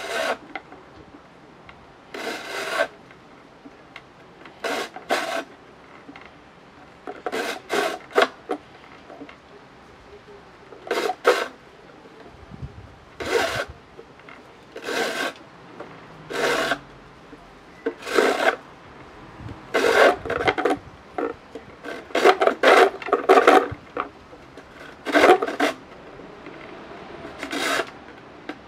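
A knife blade scraping along a slender fishing rod in about twenty short strokes, some in quick pairs or runs, with pauses of a second or two between them.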